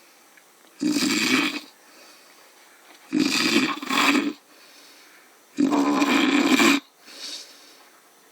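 A man snoring in heavy, drink-induced sleep: three loud snores about a second each, roughly two and a half seconds apart, then a much softer breath near the end.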